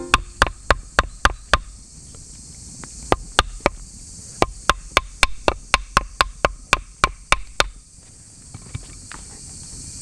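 Knife blade cutting into hard, dry wood to carve a notch, giving a quick run of sharp clicks at about three a second that stops about three-quarters of the way through, with a few fainter ones after.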